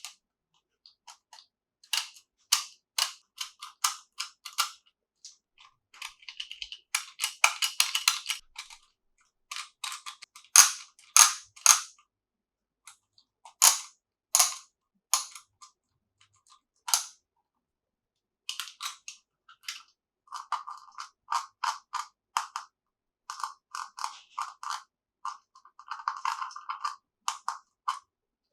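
Small plastic toy pieces being handled: irregular sharp clicks, taps and clacks, with a denser rustling stretch about seven seconds in and quick runs of light clicking in the last third.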